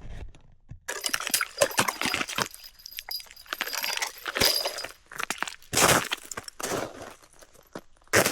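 Objects being handled: a run of clinks, clatters and rustles, with a faint high ring about a second in and again about four seconds in, and a loud clatter near the end.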